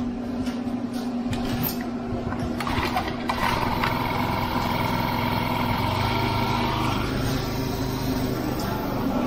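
Screed Demon power screed's small gas engine running steadily as the vibrating blade strikes off wet concrete, with a higher whine joining in from about three seconds in to about seven.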